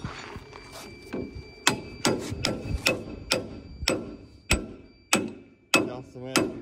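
Hammer striking metal on a tractor's front loader under repair: a steady series of hard blows, about one every 0.6 seconds, each leaving a short metallic ring.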